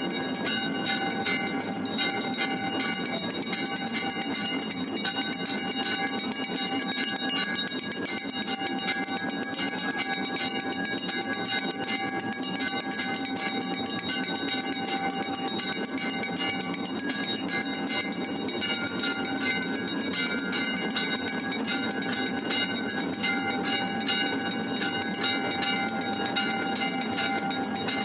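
Temple bells clanging without a break during aarti, a dense steady clangour full of overlapping ringing tones.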